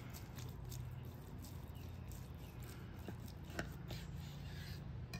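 A chef's knife slicing through a bacon-wrapped, sauce-glazed meatloaf, with faint crackling from the crisp bacon crust and a few light clicks as the blade meets the wooden cutting board, the sharpest about three and a half seconds in. A low steady hum lies underneath.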